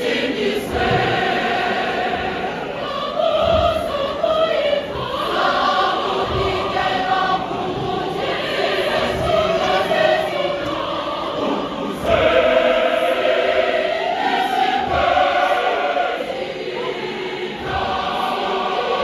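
Large church choir singing a choral piece in parts, many voices together, with a few low thumps now and then.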